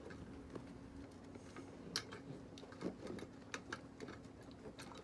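Scattered small clicks and taps of metal parts being handled while a bracket is fitted into a tinplate toy locomotive, over a faint steady hum.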